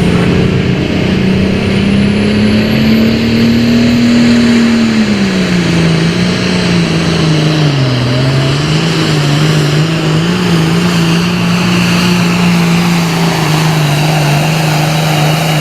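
Super farm class pulling tractor's turbocharged diesel engine running flat out under load as it pulls the weight sled. Its steady note sags about five seconds in, dips briefly near the middle, then holds steady.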